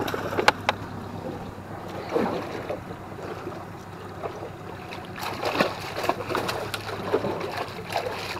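Hooked channel catfish thrashing at the water's surface beside the boat, splashing in irregular bursts, with two sharp clicks about half a second in.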